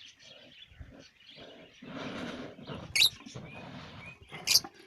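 Fischer's lovebirds giving sharp, high-pitched chirps, two loud ones about three and four and a half seconds in, with softer short calls between. A brief rustling noise comes about two seconds in.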